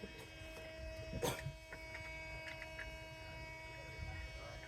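A steady hum holding several fixed tones over a low rumble, with one short knock about a second in.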